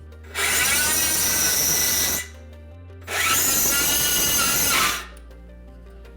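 Electric power drill running in two bursts of about two seconds each, its pitch dipping and rising under load, over background music.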